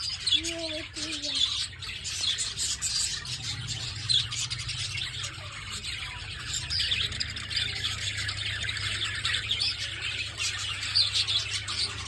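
A flock of caged budgerigars chattering and chirping all at once, a steady stream of many overlapping high twittering calls.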